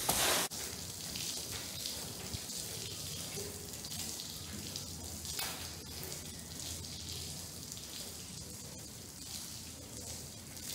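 Water spraying onto a soaked oriental rug during the rinse: a steady, hissing spatter. In the first half-second, a stiff push broom scrubs through shampoo foam, then cuts off suddenly.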